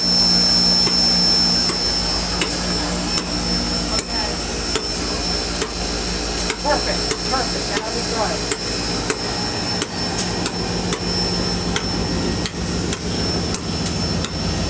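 Norfolk & Western 611, a J Class 4-8-4 steam locomotive, standing in steam: a steady high whine over a low hum, with sharp metallic clicks about twice a second.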